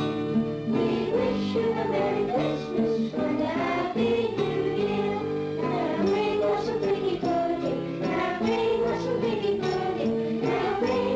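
Christmas music: a choir singing over jingle bells.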